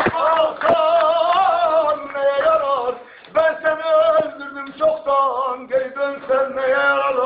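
A man singing a Turkish song unaccompanied, in long held notes with a wavering vibrato, breaking off briefly about three seconds in.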